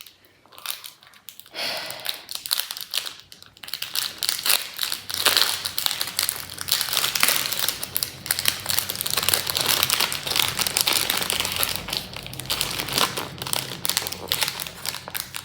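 Plastic packaging crinkling and rustling as a pack of double-sided picture-hanging strips is opened by hand. A few scattered crackles at first, then steady crinkling from about four seconds in.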